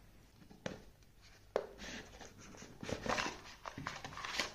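Cardboard earbud packaging being handled: two light knocks in the first second and a half, then scraping and rustling as the inner box slides out of the outer box.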